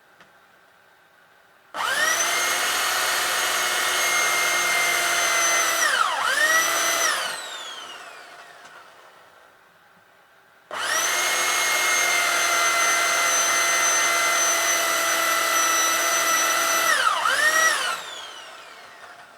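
Electric hand drill drilling out a rivet on a washing-machine motor casing: two runs of several seconds, each a steady high whine. Near the end of each run the pitch dips and recovers as the bit bogs down in the rivet, and then the drill winds down after the trigger is released.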